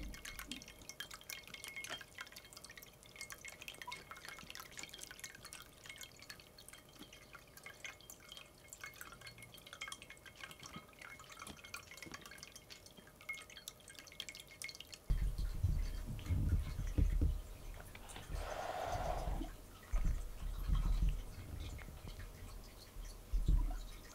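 Water dripping and trickling in a pet water fountain, many small drips and clicks. From about 15 seconds in, low thumps and rumbles take over, with a short rustling burst near 19 seconds.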